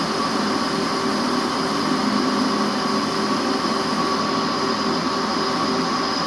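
Machine tool running steadily through a cut, a constant mechanical noise with a steady high whine.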